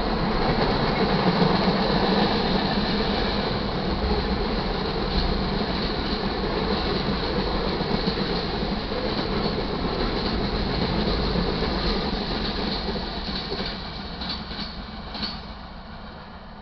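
Freight train cars rolling past on steel rails: steady wheel-on-rail noise with clickety-clack. The noise fades in the last few seconds as the end of the train goes by, with a few sharp wheel clicks.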